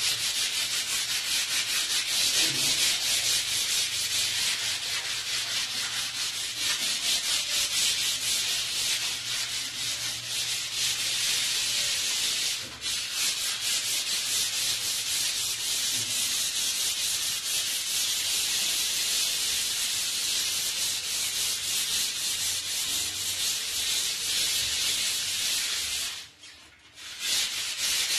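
A wall being sanded by hand with sandpaper: rapid back-and-forth scratchy strokes with no let-up, stopping briefly near the end before starting again.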